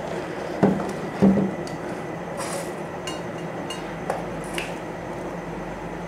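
Two sharp knocks about half a second apart near the start, then a few light clicks and clinks, from metal tools and fittings being handled on a refrigeration repair set-up, over a steady background hum.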